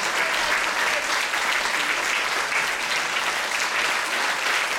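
Many people clapping together in dense, steady applause.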